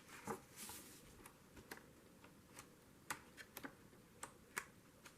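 Faint, irregular clicks and a soft paper rustle from the pages of a journal being handled and turned.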